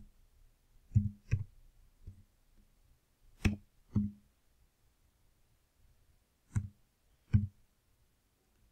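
Computer keyboard keystrokes: about seven sharp clicks, mostly in pairs, each with a short low ring, with near silence between them.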